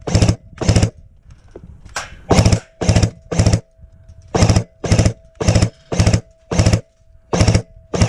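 Airsoft gun firing a string of short full-auto bursts, about two a second, in groups of two to five with brief pauses between groups.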